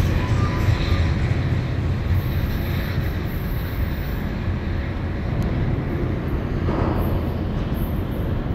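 Steady low rumble of a Caltrain commuter train pulling away from the station, fading into a general background roar.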